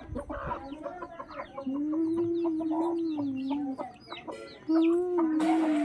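Hens clucking and calling as they peck at scattered grain, with two long wavering calls and many short high peeps over them.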